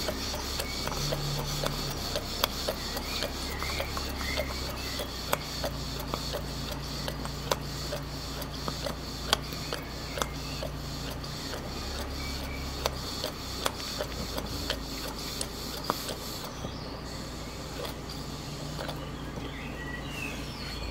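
Stuart Victoria single-cylinder horizontal mill steam engine (a model engine) running with a steady rhythmic mechanical clatter and a few louder clicks, on a boiler whose steam pressure is running low.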